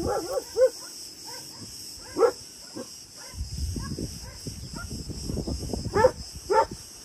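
Dogs barking in short, scattered barks, the loudest about two seconds in and twice near the end, over a steady high buzz of insects.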